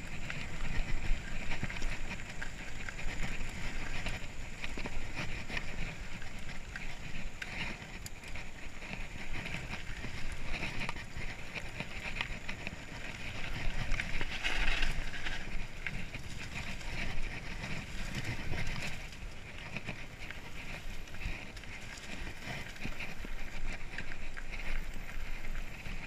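Mountain bike rolling over a dirt trail: continuous tyre noise with the rattle of the frame and chain over bumps, louder for a moment about halfway through.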